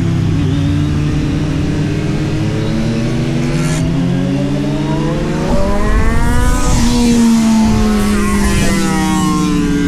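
Kawasaki Z900's inline four-cylinder engine under way, revs sinking at first, then climbing hard and getting louder through the middle before easing off, with a short second rise near the end.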